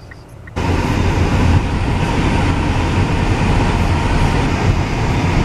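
Steady road and engine rumble inside a moving car, cutting in abruptly about half a second in.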